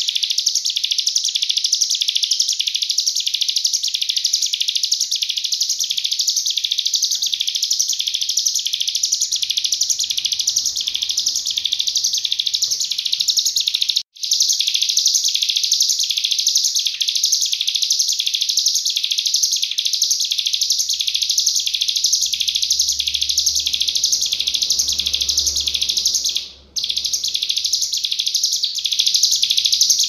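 Ciblek gunung (cigun) singing a rapid, unbroken 'nembak' song of high chirping notes repeated two or three times a second. The song cuts out briefly twice, about halfway through and near the end.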